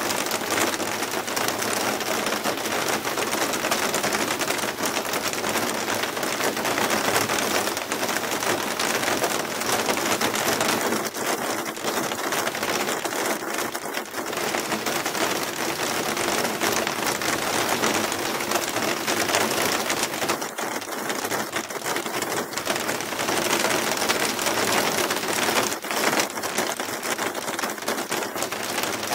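Hail and heavy rain falling steadily on tiled roofs, a car and the ground, a dense, unbroken hiss of countless small impacts.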